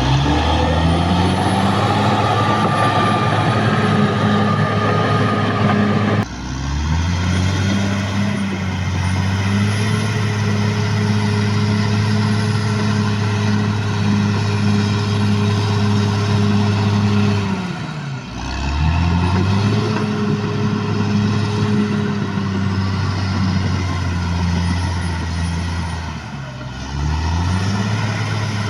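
Caterpillar D6R bulldozer's diesel engine running hard. Its pitch sags and climbs back up a few times, about six, eighteen and twenty-six seconds in.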